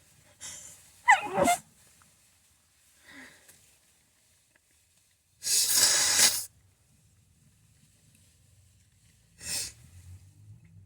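A person sneezes once about a second in: a quick intake, then a loud burst whose voice falls in pitch. Midway there is a long, loud, breathy blow of about a second, typical of blowing the nose, and a shorter breathy burst near the end.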